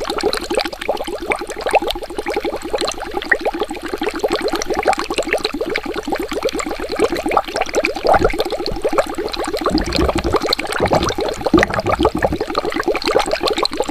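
Water bubbling: a dense, steady stream of small bubbles popping and rising, with a few deeper gurgles between about eight and twelve seconds in.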